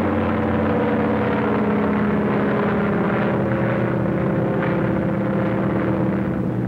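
Bomber's propeller engines running in a steady drone.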